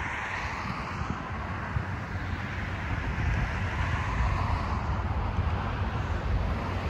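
Road traffic: cars passing, their tyre and engine noise swelling and fading, with wind rumbling on the microphone.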